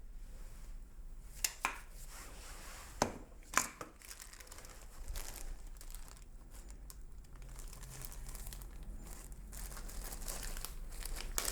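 Hand-handling noises from working on a manual-transmission shifter: a few sharp clicks and knocks, two about a second and a half in and two more around three seconds in, followed by a soft crinkling rustle that grows toward the end.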